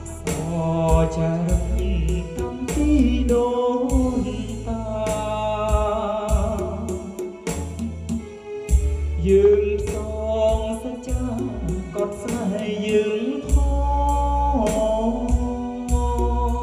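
A man singing into a handheld microphone over a karaoke backing track with a drum beat and heavy, booming bass notes, all played through a JBL EON208P portable PA and a JBL PRX815XLFW subwoofer.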